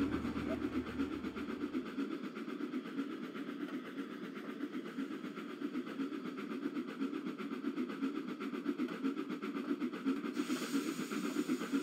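Miniature steam locomotive running with a train of ballast wagons: a steady rolling rail sound with a fast, even beat. A low hum drops out about two seconds in, and a hiss sets in near the end.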